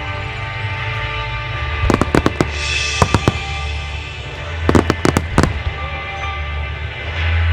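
Fireworks shells bursting in quick clusters of sharp cracks, about two seconds in, again at three seconds and near five seconds, over music with sustained tones.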